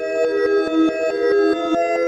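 Synthesized EAS-style alert tones: steady electronic notes, often two or three together, stepping to new pitches every fraction of a second.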